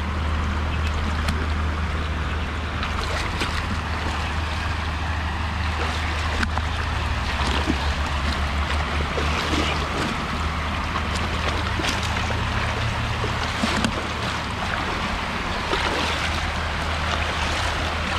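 Shallow creek water sloshing and splashing as people wade and scoop for fish, with scattered short splashes over a steady low hum.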